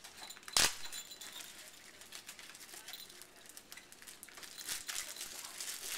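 Gift wrapping rustling and crinkling in a person's hands as a small present is unwrapped, with scattered small ticks and one sharp click about half a second in.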